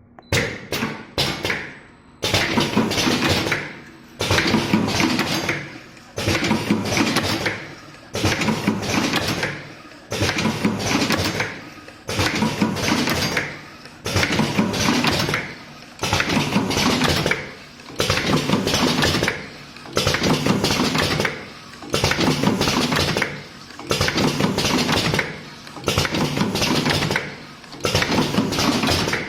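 Automatic cartoning machine running, clattering and clicking in a regular cycle that repeats about every two seconds as it forms and fills boxes.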